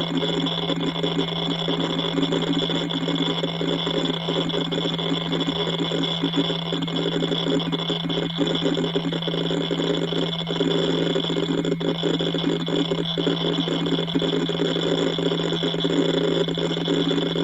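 A first-generation 74 GB Western Digital Velociraptor hard drive spinning at 10,000 RPM: a steady hum with a constant, irregular patter of small clicks.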